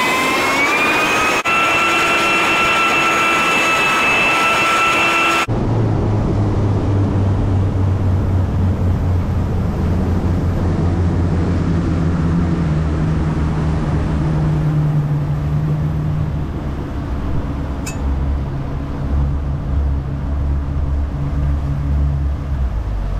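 Twin Yamaha 150 outboard motors throttling up, their whine rising in pitch and then holding steady. About five seconds in, the sound changes abruptly to a low, steady engine drone under a rush of noise as the boat runs at speed.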